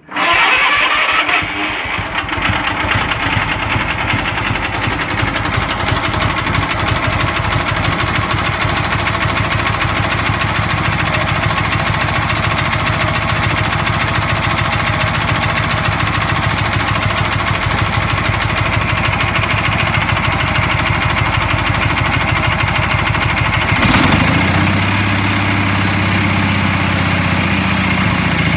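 Small garden tractor engine catching right at the start and then running steadily. About 24 seconds in, its sound changes and a deeper, even hum comes in.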